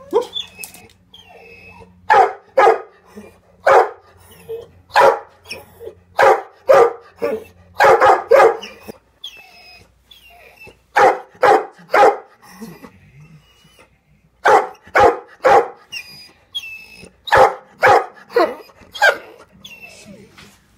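A dog barking repeatedly in shelter kennels, in bouts of two or three barks separated by short pauses.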